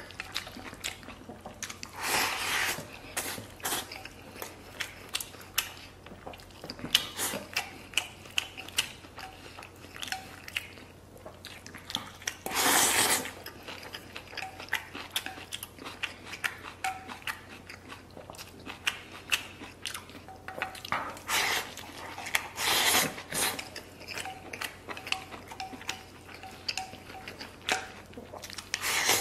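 A person eating rice from a stainless steel bowl with chopsticks, close up: the chopsticks click and scrape against the metal rim while he chews. Several louder slurps come as food is sucked in from the bowl's edge.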